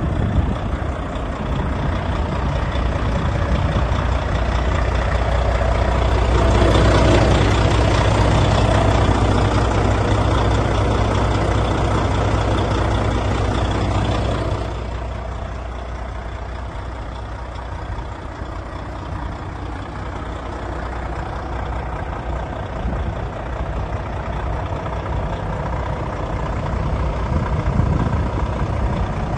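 Volvo FH13 tractor unit's 13-litre straight-six diesel idling steadily. It grows louder for several seconds around the middle, then drops back to a quieter, even idle about halfway through.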